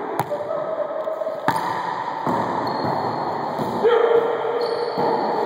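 Wallyball rally: a few sharp smacks of the rubber ball being hit and rebounding, with the echo of an enclosed court. The loudest hit comes near the end, with a held tone over it.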